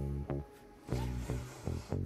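Background music: a melody of separate pitched notes, with a short lull about half a second in.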